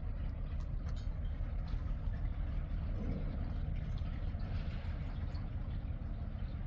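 An engine idling: a low, steady rumble.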